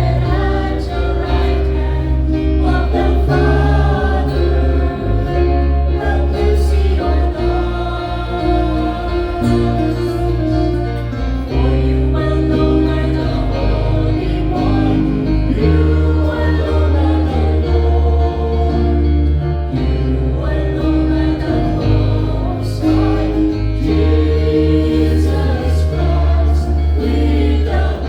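Church choir singing a hymn over instrumental accompaniment, with sustained bass notes changing every second or two.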